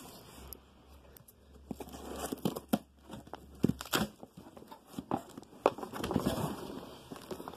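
A cardboard shipping box being handled and opened by hand: scattered knocks and scrapes of cardboard, with tearing and crinkling as it comes open, busiest in the second half.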